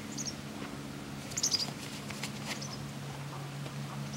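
Short, high-pitched squeaky chirps from a small animal, a few times, over a steady low hum.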